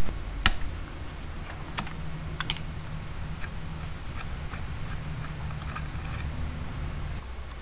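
Scattered light clicks and taps of small metal parts as a partly disassembled Honda VT500C carburetor is handled and worked on, over a low steady hum that stops near the end.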